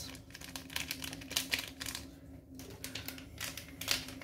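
Fried rice in a frying pan crackling and sizzling, with many irregular small pops, after water and soy sauce have gone in. A steady low hum runs underneath.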